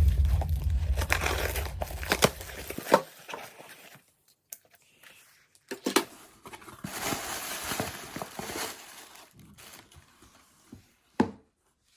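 Retail packaging of an AirPods Pro box being handled, paper and plastic wrap crinkling and tearing in several bouts, loudest from about seven to nine seconds in, with scattered taps and a sharp click near the end. A low hum sounds in the first three seconds.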